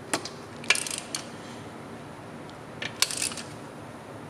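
Steel hand tools clinking: a socket wrench and extension being handled and fitted, with a few sharp clinks and two short rattling runs of clicks, about a second in and about three seconds in.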